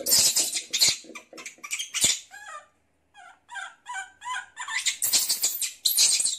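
Rustling of shredded paper bedding and light rattling of a wire hamster cage as hands work at it. In the middle comes a run of about five short, high squeaks like a small animal's cries.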